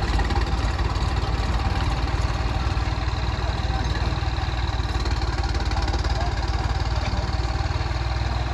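New Holland 3630 tractor's three-cylinder diesel engine running steadily at a low, even speed, with no revving.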